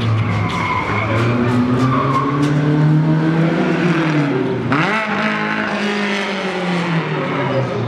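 Race car engine revving hard, its pitch climbing for a few seconds, then dropping sharply with a burst of noise about halfway through before climbing again, with tyres squealing as the car slides through the corner.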